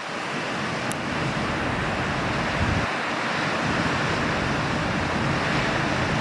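Ocean surf: a steady rush of breaking waves, swelling a little over the first second or two and then holding steady.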